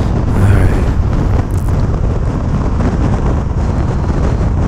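Steady in-cab drone of a 2015 Ford F350 dually pickup cruising at highway speed: its 6.7-litre Power Stroke V8 diesel, tyre and wind noise blended into an even low rumble.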